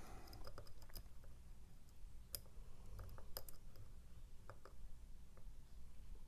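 Faint, irregular clicks of a lock pick and tension tool working the sliders inside an Evva ICS lock, with two sharper clicks a little past two and three seconds in.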